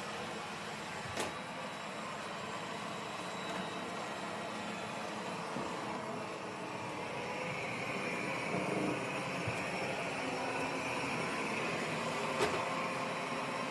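Airzeen R7 robot vacuum cleaner running: a steady motor whir and brush noise that grows a little louder and hissier in its second half, with two light knocks, one about a second in and one near the end.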